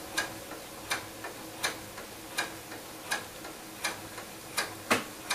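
Sewing machine stitching at its slow speed setting: a faint steady motor hum with a sharp click at each needle stroke, about one and a half clicks a second.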